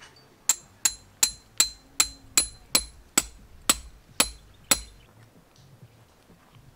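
A hammer driving a tent stake into hard ground: eleven sharp, evenly paced strikes, a little over two a second, each with a short metallic ring, stopping about five seconds in.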